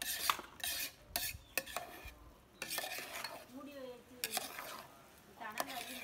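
Metal ladle stirring and turning freshly cooked biryani rice in a large aluminium pot, scraping against the pot in irregular strokes with short pauses between them.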